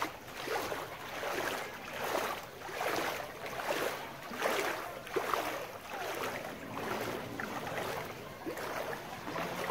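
Legs wading through knee-deep floodwater, splashing and sloshing with each step in a steady walking rhythm, about a step every three quarters of a second.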